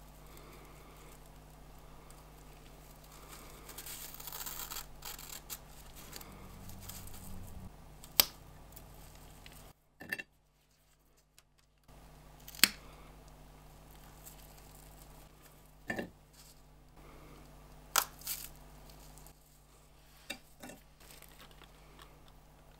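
Crisp cream-filled wafer (ETi Dare with lime cream) handled in gloved fingers: a dry rustle and scrape, then about six sharp single cracks a few seconds apart as pieces snap off.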